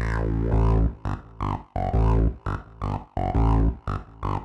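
Electronic intro music: synthesizer chords over deep bass in a choppy, stop-start rhythm.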